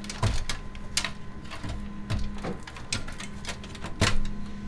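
Irregular clicks and knocks of hands working on computer parts and cable connectors inside a PC case, the busiest cluster about four seconds in, over a steady low hum.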